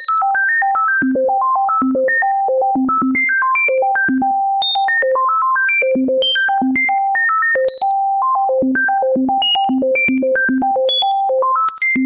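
Synthesizer playing a quick stream of short single notes, several a second, leaping up and down over a wide range of pitch: a melody generated from the sequence of prime numbers.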